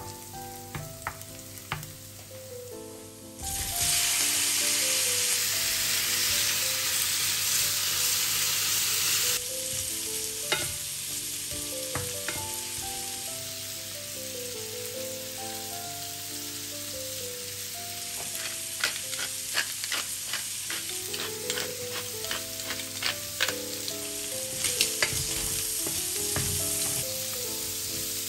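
Shrimp and minced garlic sizzling in hot olive oil in a stainless steel frying pan. The sizzle jumps loud a few seconds in, as the shrimp go into the oil, and settles to a steadier fry after a few more seconds. A wooden spoon clicks and scrapes against the pan, most often near the end, over soft background music.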